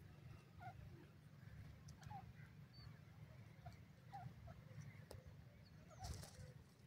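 Near silence over a low rumble, with a handful of faint, short soft notes from a francolin, spaced about a second apart.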